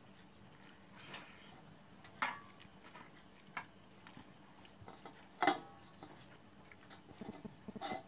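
Eating by hand from a steel plate: a handful of scattered sharp clicks and taps, the loudest a little past halfway, with soft quick ticking near the end.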